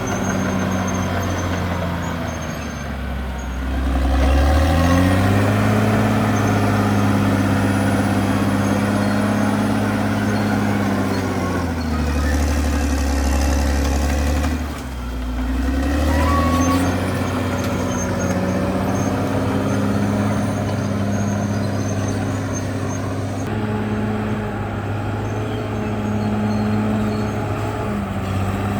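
CAT D6R XL bulldozer's diesel engine running hard under load. Its pitch sags twice, about three seconds in and again around twelve seconds, then climbs back as it pulls.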